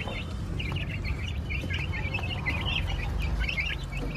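A group of young chicks and ducklings peeping continuously in rapid, overlapping short chirps while they feed on grain, over a low steady rumble.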